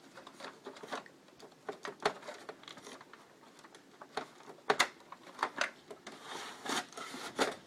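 Irregular clicks, knocks and scraping of hands working on a desktop computer's drive bay, unplugging the cables and sliding the second optical drive out, with one sharper knock a little before the middle.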